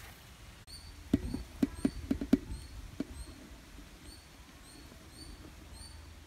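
Steel mixing bowl clinking and knocking against the rim of a steel pot as flour is tipped in: a quick run of about eight sharp knocks in two seconds, then it settles. A faint high chirp repeats about twice a second throughout.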